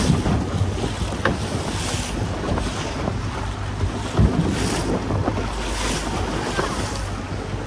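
Small motorboat under way on choppy sea: the motor runs with a steady low drone, with wind buffeting the microphone and water splashing against the hull in gusts.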